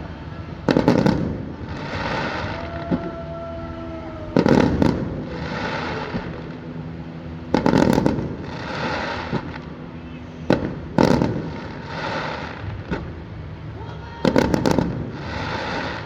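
Aerial firework shells bursting with loud bangs about every three to four seconds, five in all, each followed by a softer hiss.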